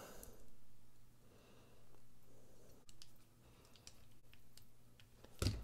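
Faint small metallic clicks and ticks of a precision screwdriver and tiny screws being worked into a folding knife's frame during reassembly, with one sharper click near the end.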